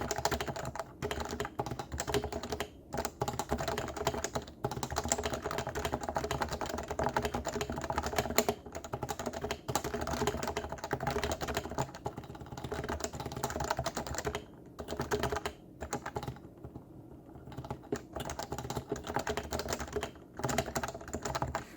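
Fast typing on a completely stock Leopold FC660C keyboard with Topre electro-capacitive switches: a dense run of deep, muted keystrokes, the 'thocc' its owner praises. The keystrokes thin out briefly near the end, then pick up again.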